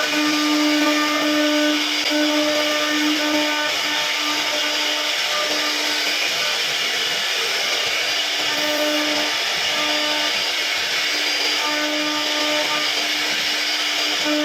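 CNC router spindle running and cutting wood: a steady hiss of cutting over a pitched hum that drops out and returns every second or so.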